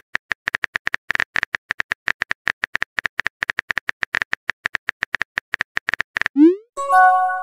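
Synthetic keyboard tap clicks from a texting-story app, about seven a second, as a message is typed letter by letter. Near the end comes a quick rising swoop and then a short chime of a few steady tones: the message-sent sound.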